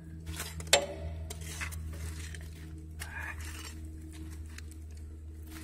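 Wood fire crackling in a stove's firebox, with scattered small pops and one sharp clink with a brief ring about three-quarters of a second in, over a low steady hum.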